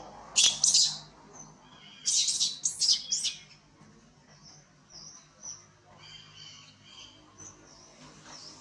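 Baby macaque screaming: a short burst of shrill, high-pitched cries about half a second in, then a longer run of them about two seconds in, followed by faint high chirps.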